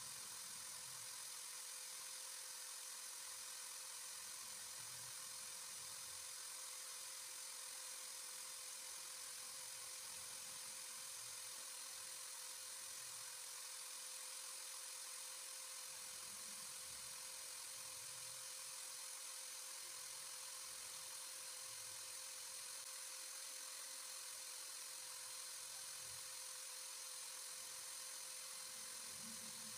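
Electric drill running steadily as a makeshift lathe, spinning a fishing-float body while sandpaper is held against it; a steady whir.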